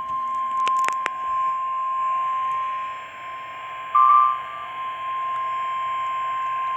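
NOAA Weather Radio's 1050 Hz warning alarm tone: one steady high tone over radio hiss, marking the start of a severe thunderstorm warning broadcast. A few clicks come about a second in, and a brief, louder, slightly higher tone sounds about four seconds in.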